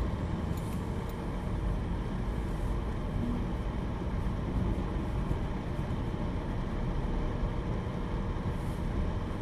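Steady low road noise inside a moving car's cabin: the car running and its tyres rolling over a snow-covered road.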